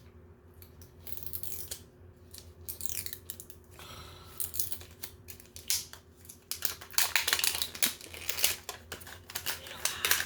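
Plastic toy packaging being cut and torn open: snips, tearing and crinkling, growing denser and louder over the last few seconds.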